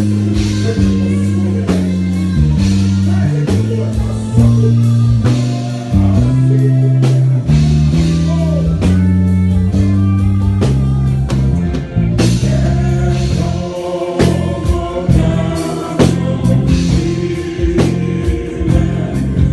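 A band playing a song with singing: a stepping bass line, drum hits and guitar under a sung melody.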